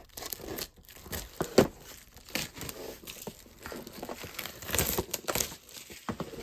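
Packaging crinkling and tearing as a sealed plastic model kit box is handled and unwrapped: irregular sharp crackles, the loudest about a second and a half in.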